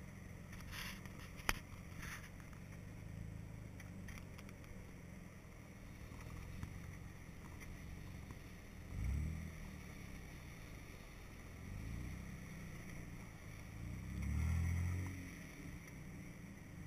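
Jeep Wrangler engine running at low revs while crawling through snow, swelling in revs three times, about nine, twelve and fourteen seconds in, the last the loudest. A sharp click about a second and a half in.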